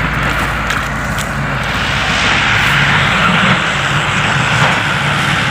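Tractor engine running steadily while cultivating a wet paddy field, with a continuous hum under a wide hiss.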